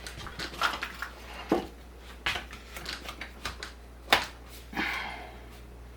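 Scattered light clicks and knocks, irregular and a second or so apart, with one sharper knock about four seconds in and a brief rustle just after, from small hard parts being handled.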